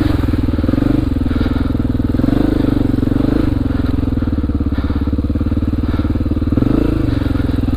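Honda XR400R's air-cooled single-cylinder four-stroke engine running at low, fairly steady revs, its firing pulses close and even, with a few small rises in pitch.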